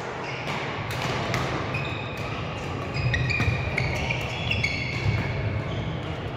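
Badminton doubles play in a sports hall: a series of sharp racket-on-shuttlecock hits and footfalls, with court shoes squeaking briefly on the floor several times in the middle.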